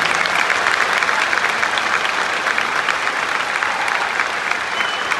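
Large stadium crowd applauding steadily, a dense patter of many hands.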